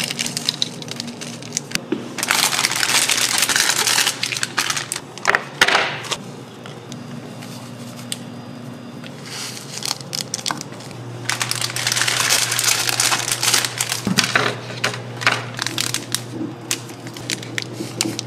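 Foil seasoning packets crinkling as they are torn and shaken out over dry instant ramen noodles, in several bursts of rustling and small clicks. A low steady hum comes in about halfway through.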